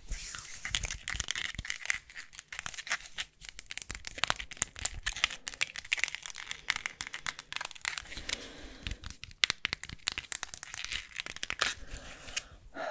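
Dense, irregular crinkling and crackling close to the microphone, an ASMR trigger sound.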